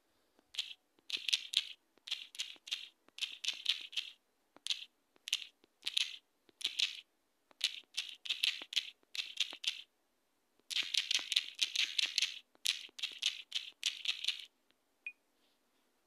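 Typing on a smartphone's on-screen keyboard: quick runs of short taps in clusters, with brief pauses between words and a longer pause about ten seconds in.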